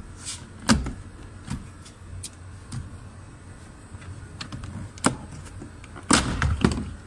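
Sharp plastic clicks and knocks as the driver-door master power window switch panel is pried out of its slot in the door trim. The loudest snaps come about a second in, about five seconds in, and as a quick cluster near the end.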